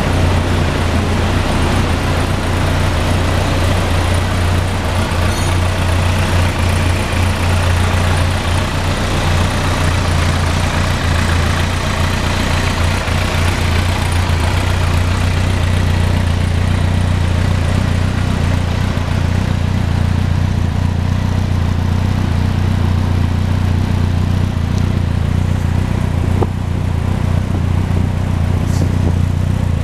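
2003 Yamaha YZF-R1's 998 cc inline-four engine running at a steady idle, with no revving.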